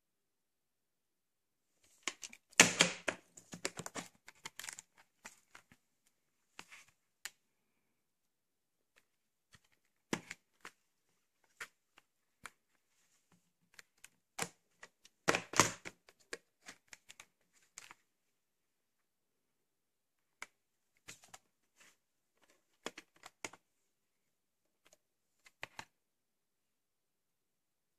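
Handling of VHS tapes and their packaging: scattered clicks and taps with short bursts of rustling and crinkling. The loudest bursts come about three seconds in and again about fifteen seconds in.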